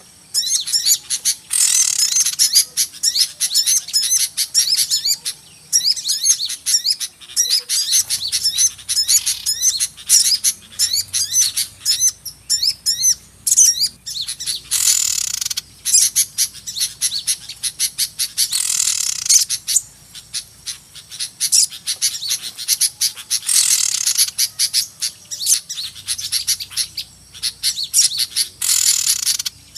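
A lure recording of a noisy flock of small birds: dense, rapid, high chirping and twittering, with several louder, harsher bursts of chatter. It is a trappers' call played to draw small birds in.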